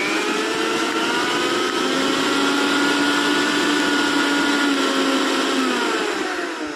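Mixer grinder's electric motor running at full speed with a steady whine, then switched off near the end and winding down, its pitch falling.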